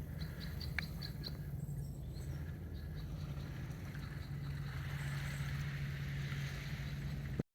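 Boat motor on a small dory running steadily with a low hum. A few short high chirps come in the first second or so, and the sound cuts off abruptly just before the end.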